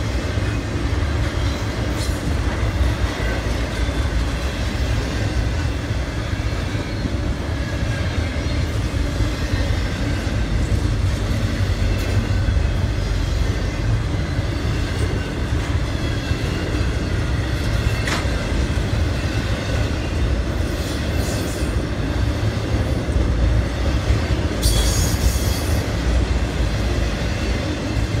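Freight train rolling past, its cars' wheels on the rails making a steady low rumble with scattered clicks at the rail joints. A brief high-pitched screech from the wheels comes about three-quarters of the way through.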